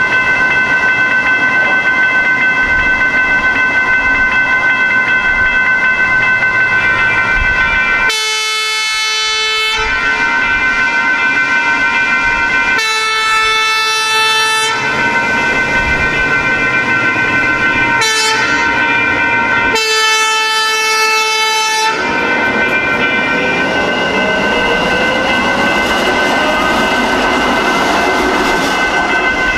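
Railroad crossing bells ringing steadily while a train horn sounds the grade-crossing signal: long, long, short, long. Near the end a rising electric whine follows as the light rail train speeds up.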